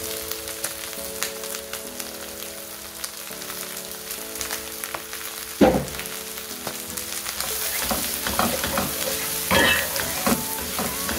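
Tripe and freshly added onions sizzling in hot cooking oil in a pan, with a spatula knocking and scraping against the pan as they are stirred. The sizzle grows louder in the second half.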